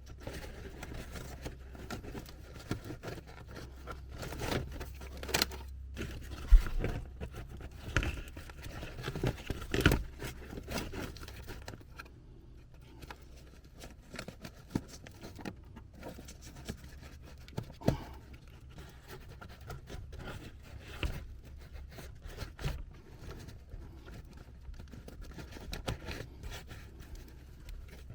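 Irregular scraping, rustling and sharp knocks of someone crawling and handling materials in an attic, with the loudest knock about six and a half seconds in.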